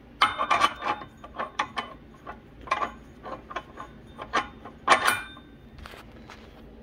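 A torque converter driver clutch being slid and worked by hand onto an engine crankshaft: a string of irregular metallic clinks and knocks with a slight ring. The loudest comes about five seconds in.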